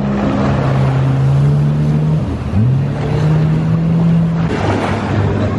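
Jet ski engine revving as it pulls away through the water: held steady, eased off about two seconds in, then opened up again with a rising pitch, and eased back near the end. Water rushing and spraying underneath.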